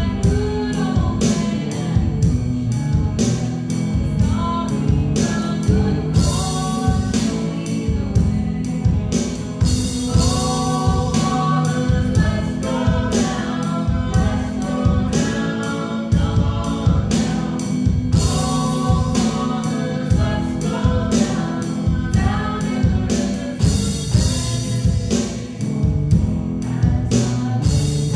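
Sung worship music: voices singing a hymn or praise song over instrumental accompaniment with a steady beat.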